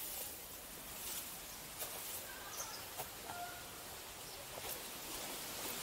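Outdoor ambience: a steady hiss with a few short bird calls about two and three seconds in, and scattered short clicks.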